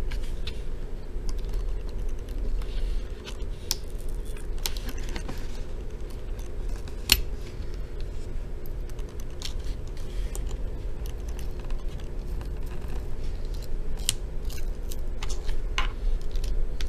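Light, scattered clicks and scratches of a thin flathead screwdriver and fingertips working the adhesive plastic screw-cover strip on an HP Stream laptop's plastic screen bezel, with one sharper click about seven seconds in, over a low steady rumble.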